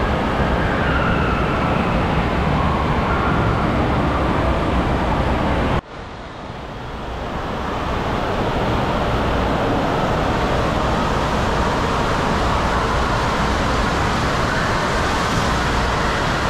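Steady rushing of water through the slides and pools in an indoor waterpark hall, with faint wavering voices of distant riders over it. About six seconds in the sound drops out abruptly and fades back up over the next two seconds.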